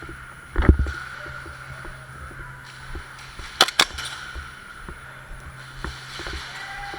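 Two sharp airsoft pistol shots a quarter second apart, preceded by a dull thump, over a steady thin high tone.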